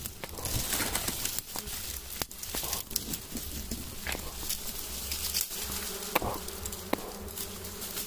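Dwarf honeybees buzzing around their small wild comb, a steady hum, while dry twigs snap and rustle sharply as the comb's branch is grabbed and handled.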